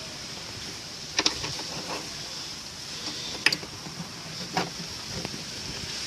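Washing-machine brake parts being fitted onto the drive shaft by hand: a handful of sharp clicks and knocks, a double one about a second in, over a steady faint hiss.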